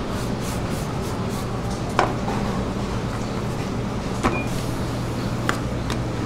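Steady low hum of shop machinery, with three short sharp knocks, about two, four and five and a half seconds in, as metal tools are handled on the work table.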